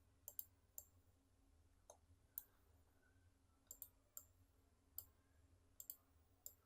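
Faint computer mouse clicks: about a dozen sharp single clicks at irregular intervals, several of them in quick pairs like double-clicks.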